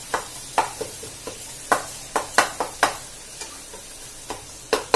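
Wooden spatula scraping and knocking against a nonstick pot while stirring onion-tomato masala frying in oil, over a steady sizzle. The strokes come irregularly, several close together around two to three seconds in.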